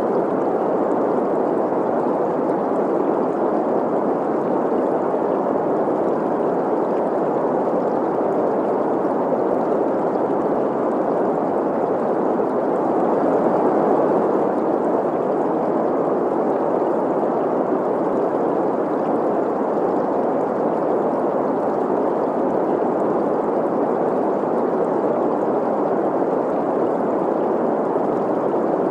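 Synthesized green noise, a steady hiss centred in the middle range, layered with the sound of a flowing stream.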